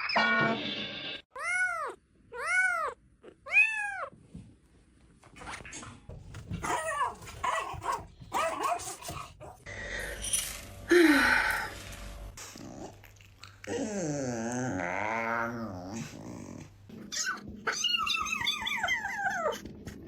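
Pet cats and dogs calling: three short cries in a row about a second apart, each rising and falling, then scattered knocks and noises, a long wavering cry and more falling cries near the end.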